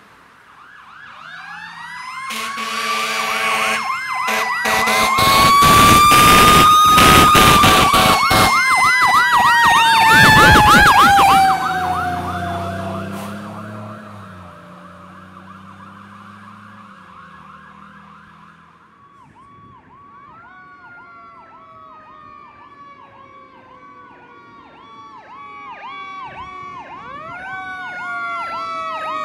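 Fire truck sirens: a wail gliding up and down over a fast yelp, loudest from about five to eleven seconds in, then fading to a low engine rumble. About two-thirds of the way through, another siren comes up with a yelp and falling wails and grows louder near the end.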